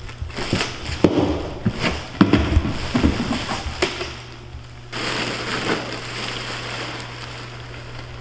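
A plastic bag rustles and crinkles, with knocks, as a bag of bitumen-coated stone pothole-repair mix is lifted out of a plastic bucket. From about five seconds in there is a steady rushing hiss as the loose stone mix pours out of the bag into a wooden box; the mix is flowing freely because it has been stored warm.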